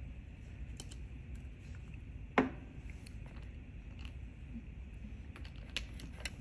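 Small clicks from handling a gel nail polish bottle, with one sharp knock about two and a half seconds in as the bottle is set down on the table, over a low steady hum.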